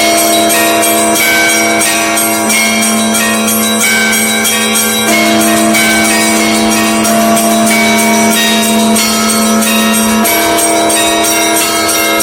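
Russian Orthodox church bells pealing: rapid strokes of many smaller bells over the steady hum of a larger bell.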